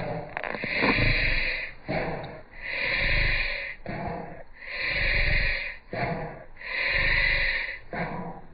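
A Shiba Inu's distressed breathing: four long, noisy breaths about two seconds apart, with shorter, lower sounds between them. The owner is unsure whether this is reverse sneezing or bronchial collapse.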